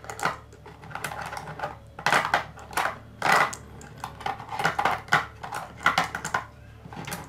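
Marbles clicking against one another and against a red plastic Brainvita board as they are picked out of its holes by hand and set in the groove round the rim: a quick, irregular run of small clicks and knocks.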